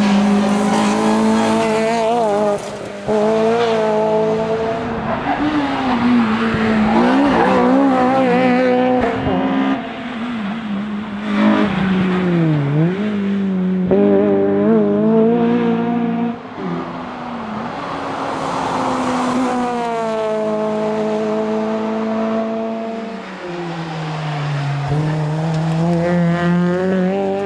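Honda Integra Type R's four-cylinder engine heard from inside the car at racing speed. The revs climb and fall as it is driven hard through a run of corners, with deeper dips in pitch about 12 and 25 seconds in where it comes off the throttle or changes gear.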